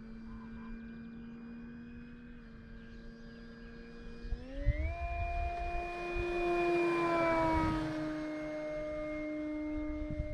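E-flite Carbon-Z Cessna 150T RC plane's electric motor and propeller whining in flight. About four seconds in the pitch steps up as the throttle is opened, then grows louder and dips slightly in pitch as the plane passes by, with wind rumble on the microphone.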